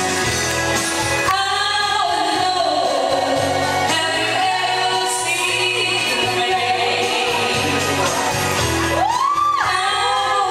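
A woman singing into a microphone over a karaoke backing track with a steady beat.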